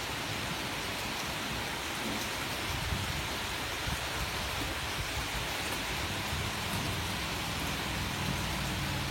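Heavy rain falling steadily, with a low rumble underneath and a few faint drop ticks.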